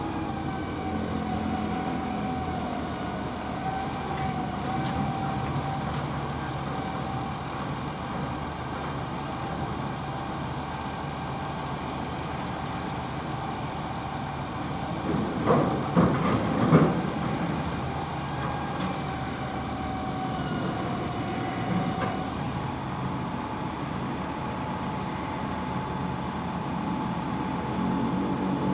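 Container reach stacker running, its engine with a steady high whine over it that stops about three-quarters of the way through. About halfway through, a few loud clunks as the container is set down onto the truck's trailer.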